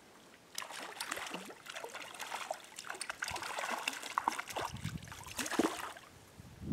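Water splashing and trickling in a stream: a run of irregular splashes starting about half a second in and dying away about six seconds in.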